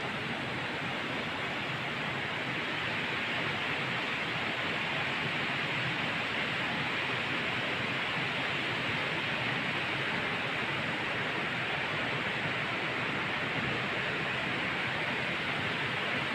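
Steady rushing of a nearby river, an even hiss that doesn't change.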